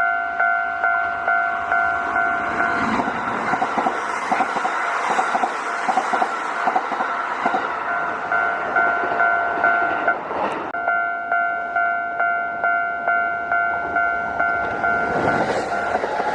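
Level-crossing warning bell ringing steadily about twice a second. A Kintetsu electric train passes over the crossing from about three to ten seconds in, rumbling with wheels clacking over the rail joints. There is a sharp brief noise about ten seconds in, and train rumble builds again near the end.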